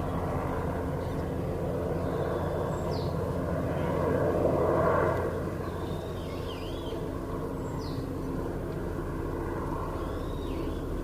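Helicopter running steadily, growing louder about four seconds in and then easing back.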